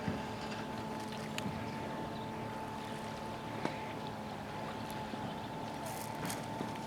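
Steady background hum with two constant tones, one low and one higher, under a few light clicks and rustles, the sharpest one near the start and another about three and a half seconds in.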